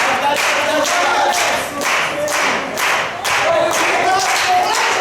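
Wrestling crowd chanting in unison while clapping in rhythm, about two claps a second.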